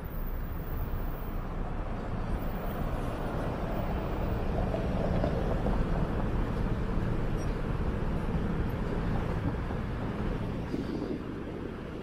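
Street traffic: a vehicle passes close by, its rumble swelling to a peak about halfway through and then fading.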